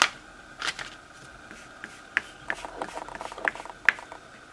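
Small paintbrush dabbing red paint onto a vinyl stencil on a wooden round and picking up paint from a paper palette: scattered, irregular soft taps and scratchy clicks, with a faint steady high hum underneath.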